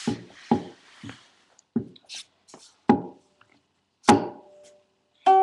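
Ukulele being slapped and tapped by hand on its body: about six separate hollow knocks, some with the strings ringing faintly. Near the end a strum sounds a clear note that rings on.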